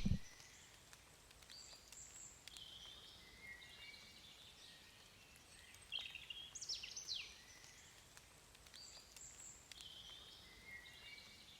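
Songbird singing in spring woodland: two similar song phrases about six seconds apart, each made of quick falling sweeps and short high notes, over a faint steady background.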